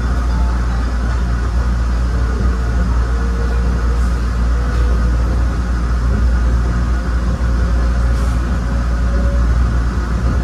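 A 1993 ABB N5 light-rail car running steadily along the line: a continuous low rumble of wheels on rail, with a faint whine that drifts slightly upward partway through.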